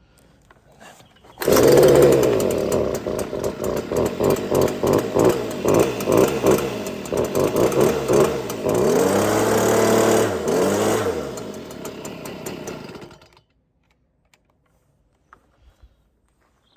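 Stihl BG86C leaf blower's small two-stroke engine catching on the newly replaced pull cord with the choke on, running loud and uneven. It revs up and down about nine to eleven seconds in, then drops away and cuts out suddenly about thirteen seconds in.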